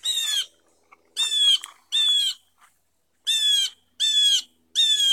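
A bird calling loudly over and over: six short calls, each about half a second long and dipping slightly in pitch, coming roughly one every second.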